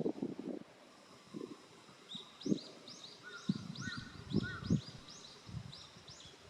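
A run of short, high chirps, two to three a second, starting about two seconds in and stopping shortly before the end. Low thumps come every second or so and are the loudest sounds.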